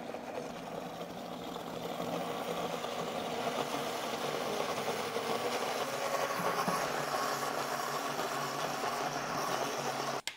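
Vitamix blender motor running, blending chilies, garlic, lemon juice and olive oil into a sauce. It gets louder over the first couple of seconds as the speed comes up, then cuts off abruptly just before the end.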